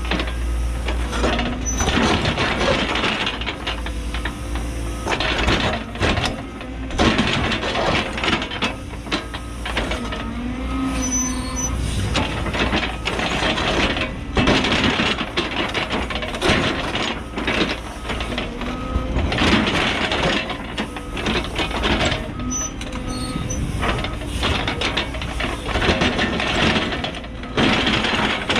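Cat 314E excavator's diesel engine running under load while its steel ripper shank drags through hard bedrock, a constant grinding and cracking of breaking rock with many sharp knocks. Short high squeals of steel scraping on rock come twice, around the middle and again near the end.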